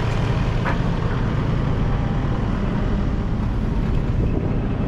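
Compact loader's diesel engine running steadily at work, with a light knock about a second in from debris being handled.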